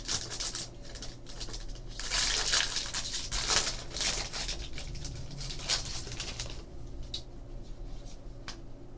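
A trading-card pack's wrapper crinkling as it is torn open, with cards rustling and tapping as they are handled, loudest a couple of seconds in.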